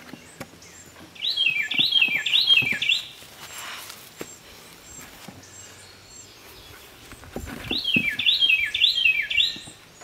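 A songbird sings two phrases, each a quick run of four or five repeated, falling notes. In between come faint knocks and rustles as potatoes are set down on a pile on soil.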